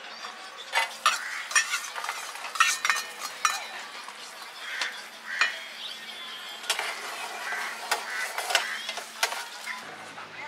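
Irregular clinks and rattles of metal utensils against cookware, some with a brief ring.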